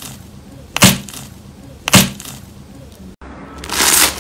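Two sharp cracking impacts about a second apart, each with a brief ringing tail. Near the end a crisp crunching sound starts.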